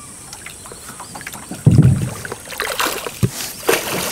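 A wooden canoe being poled through swamp water. About a second and a half in there is a sudden dull low thump, then water splashing and swishing with a few sharp knocks.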